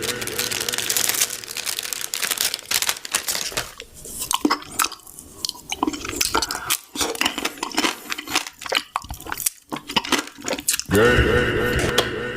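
Close-up crunchy chewing and biting of crisp food, a rapid irregular run of sharp crunches with brief pauses.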